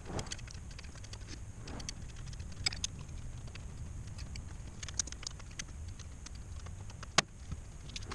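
Irregular light clicks and taps of hand tools and small metal parts being handled at the engine, with a sharper click about seven seconds in, over a low steady background rumble.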